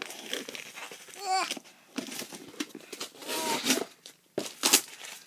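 Packing tape and a cardboard box being pulled and torn at by hand: a run of short rips and crinkles, with brief wordless vocal sounds about a second in and again past three seconds.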